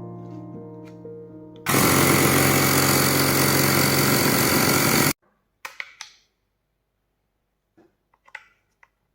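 Xiaomi 1S portable electric air compressor running steadily for about three and a half seconds, then cutting off suddenly, followed by a few light clicks. Piano music fades out just before it starts.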